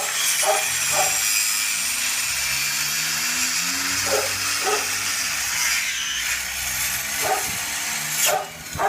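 Handheld electric power saw running steadily as it cuts through a thick log, stopping near the end.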